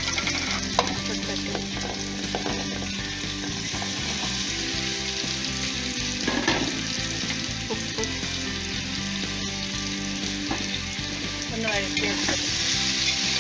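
Chopped onion, carrot and potato frying in hot oil in an aluminium pressure cooker pan: a steady sizzle, with a spoon scraping and clicking against the pan as the vegetables are stirred.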